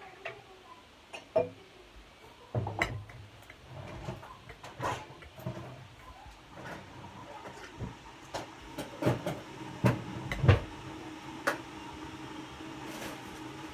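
Slime being handled on a plate: irregular clicks, taps and knocks, with the sharpest ones about ten seconds in.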